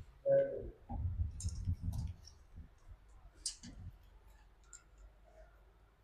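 Hand tools and metal cable parts being handled: a short ringing metallic clink just after the start, then handling noise and a few scattered light clicks that die away over the second half.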